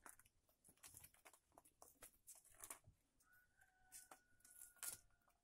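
Near silence: faint scratches and rustles of a thin stick and a kitten's paws on loose soil. A faint steady tone comes in over the last two seconds.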